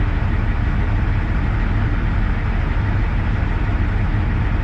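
Steady low rumble of a heavy engine idling.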